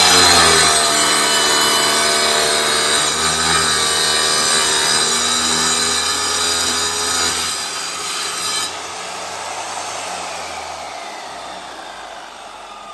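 An electric saw cutting through a geode: a loud, steady grinding of the blade in the stone over the motor's whine. About nine seconds in the grinding stops as the cut finishes, and the saw's sound then fades as it winds down.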